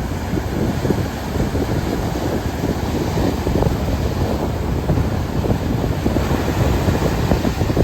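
Steady rushing, churning water with a heavy low rumble, and wind buffeting the microphone.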